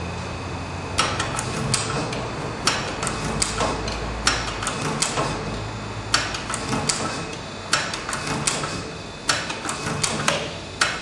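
Riveting tool setting rivets one after another, a sharp crack about every 0.8 s, over a steady machine hum.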